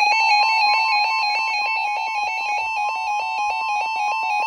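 Emergency Alert System attention signal: a loud two-tone alarm rapidly alternating between two pitches, over a steady higher tone, marking the start of a new weather warning broadcast. It cuts off suddenly just after the end.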